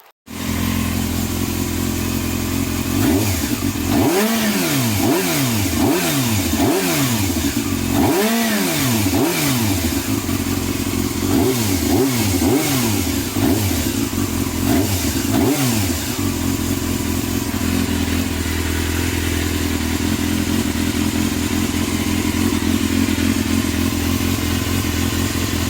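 Yamaha Thundercat's 600 cc inline-four engine running on its freshly rebuilt carburettors (new float needles and seats). It is revved up and down about a dozen times in quick blips over the first half or so, then settles back to a steady idle.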